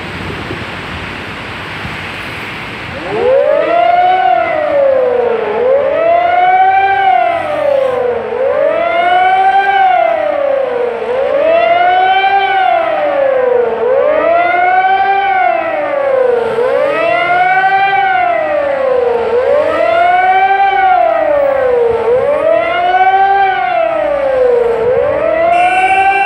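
Civil-defence warning siren wailing, its pitch rising and falling about every two and a half seconds, sounded as a commemorative signal for the Warsaw Uprising anniversary. It starts about three seconds in, over the noise of road traffic.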